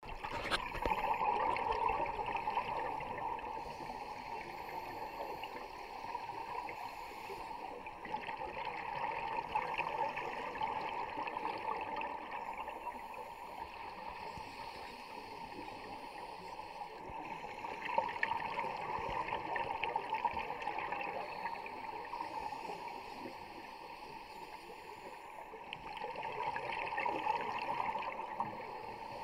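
Underwater sound through a camera housing: a scuba diver's exhaled bubbles from the regulator, rising in bubbling swells about every nine seconds over a steady watery hiss.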